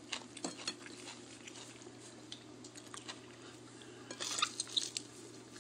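Quiet mealtime sounds: scattered light clicks and clinks of spoons and plates and of food being handled, with a busier cluster about four seconds in. A faint steady hum runs underneath.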